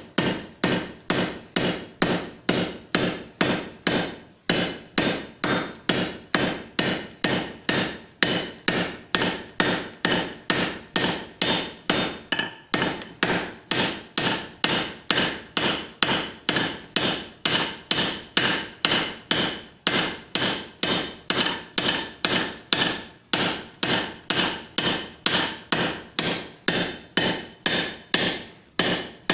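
Steady hand-hammer blows on a guillotine-type pipeswage, necking down and tapering a red-hot 1-inch steel pipe. The strikes come at about two a second, each a sharp ring that dies away quickly, with a brief pause now and then.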